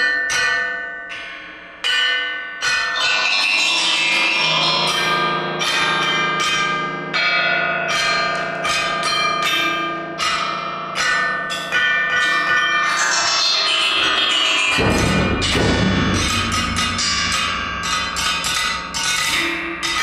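Contemporary chamber music built on struck metal percussion: rapid, overlapping bell-like strokes that ring on, over a pitched ensemble texture. About fifteen seconds in, a dense low rumble enters suddenly beneath the ringing.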